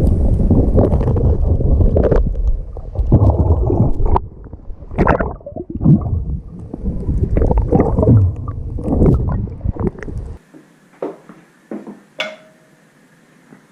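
Muffled rumbling and gurgling of water with irregular knocks, as heard through an action camera's underwater housing while freediving for rock lobster. About ten seconds in it cuts to a much quieter background with a few sharp clicks.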